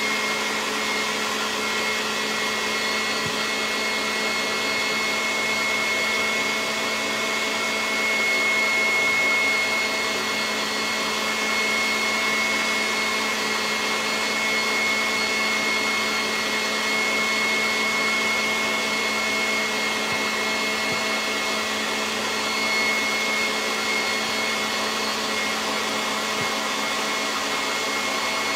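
KitchenAid tilt-head stand mixer running at a steady speed, its electric motor whining evenly as the wire whip beats egg whites into boiled frosting.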